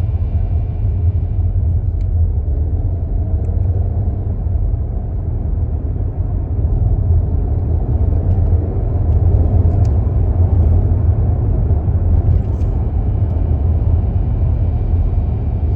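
A car on the move, with a steady low road and engine rumble. A faint high-pitched buzz fades out in the first second or two and comes back near the end: the buzzing noise the owner hears on deceleration.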